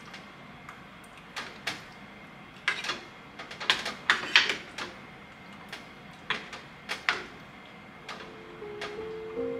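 Metal ladle clinking and scraping against a stainless steel pot as a thick cream stew is stirred: irregular knocks, most frequent around the middle. Soft music comes in near the end.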